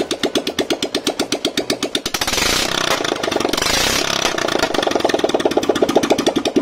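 Royal Enfield Bullet 500's single-cylinder engine idling with an even beat of about eleven pulses a second, freshly rebuilt with new piston rings and reground head valves to cure oil burning. About two seconds in, a louder rushing sound lasting almost two seconds covers the beat.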